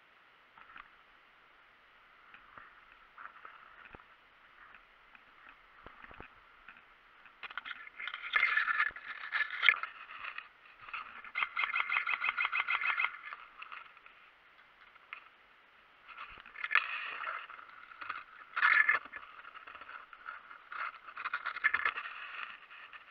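Tall dry grass rustling and scraping against a moving player and camera, in loud bursts from about a third of the way in, with a run of rapid, even clicks for about two seconds in the middle; the opening is quiet with only a few faint ticks.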